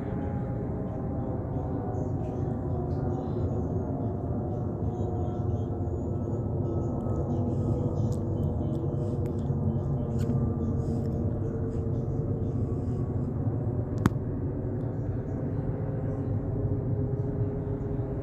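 British Airways Boeing 777-236ER jet engines heard from the ground as it flies overhead: a steady low rumble with several humming tones, some sliding slowly lower. A single sharp click about fourteen seconds in.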